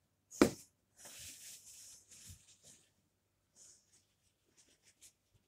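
A sharp knock as a roll of paper towels is set down upright on the kitchen worktop, followed by about two seconds of soft rustling and scraping, then a few faint small clicks.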